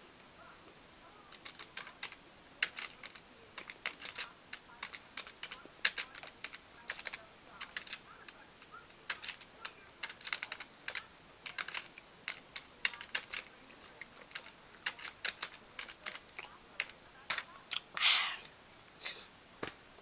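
Irregular quick clicks and taps, several a second, like typing. About eighteen seconds in there is a short, louder rush of breathy noise.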